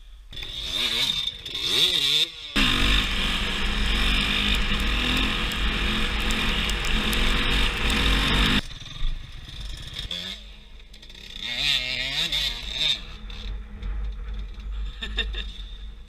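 Dirt bike engines revving up and down, then about six seconds of riding flat out with a dense roar of engine and wind on the camera that cuts off suddenly, then engines revving again more quietly.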